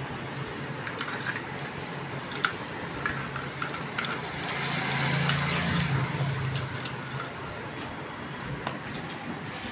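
Scattered plastic clicks and knocks as a Jetfiber H5 fiber fusion splicer is handled and set down into its foam-lined hard carrying case, with a cluster of sharper knocks about six seconds in. Under them runs a steady low hum that grows louder in the middle.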